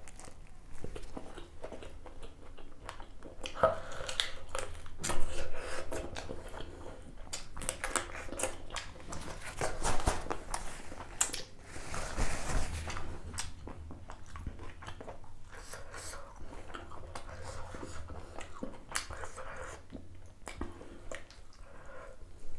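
A person eating spicy duck curry close to the microphone: chewing and biting, with many irregular mouth clicks and a few louder bites.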